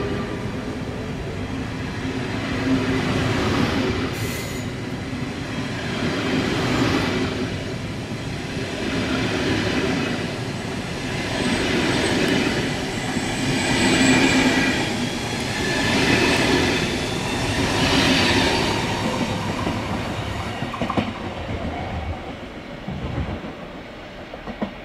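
Train running through the station: wheels clattering over the rail joints, with high wheel squeal midway. The sound fades away over the last few seconds.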